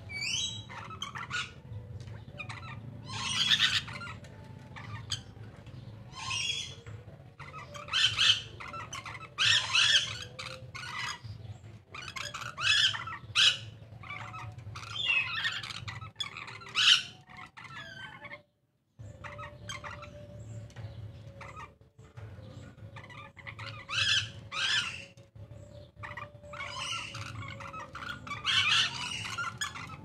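A pair of caged lories calling: repeated harsh squawks and shrill chattering in short, irregular bursts, with a brief pause about two-thirds of the way through.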